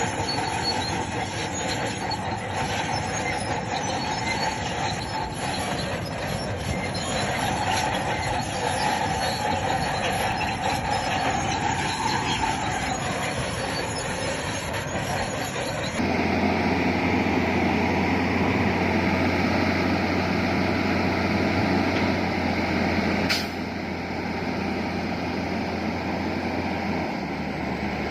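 Crawler bulldozer working: its diesel engine runs under load while the steel tracks give a wavering high squeal. About halfway in the sound switches to a louder, steady low engine hum. A single sharp knock comes about three-quarters of the way in, and the sound is a little quieter after it.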